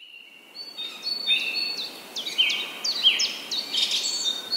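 Birds chirping and singing in a busy chorus of short high notes, many sweeping down in pitch and several overlapping. It fades in over the first second.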